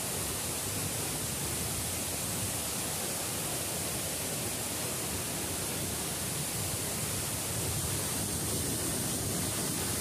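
Large waterfall in full flow: a steady, even rush of heavy falling water.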